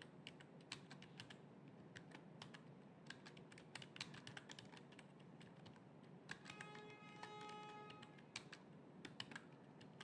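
Faint typing on a computer keyboard: irregular, quick keystrokes. About two-thirds of the way through, a steady tone with several pitches sounds for about a second and a half.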